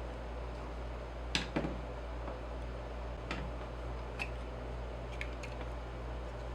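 Several short, light clicks and taps, the loudest pair about a second and a half in, over a steady low hum.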